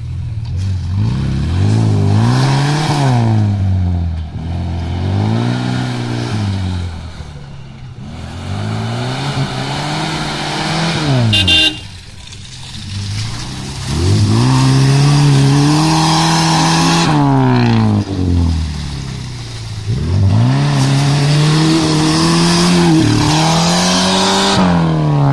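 Suzuki Vitara off-roader's engine revving hard in repeated surges as it is driven through deep mud, the pitch climbing and dropping about six times.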